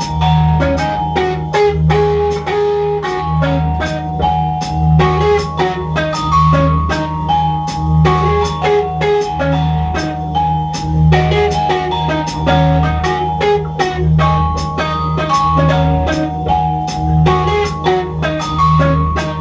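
Live electronic music played on electric guitar and synthesizer: a deep bass pulse repeating a little faster than once a second under a busy pattern of short, marimba-like plucked notes and sharp clicking percussion.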